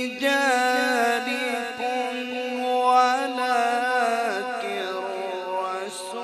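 A man reciting the Quran melodically (tilawat), drawing out long, ornamented notes that slide up and down in pitch, heard through a microphone.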